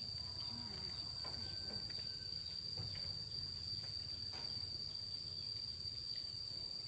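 Insects trilling in one steady high-pitched tone, with a low rumble beneath and a few faint clicks.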